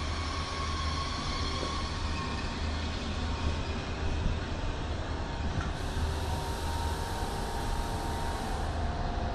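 Bi-mode AGC regional multiple-unit train (B 81500 series) moving slowly along a platform: a steady low running hum with faint whining tones, one of which drops slightly in pitch near the end.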